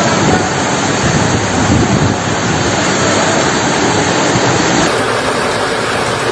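Floodwater and rain rushing: a loud, steady wash of water noise. About five seconds in, it cuts to another recording of the same kind of rush.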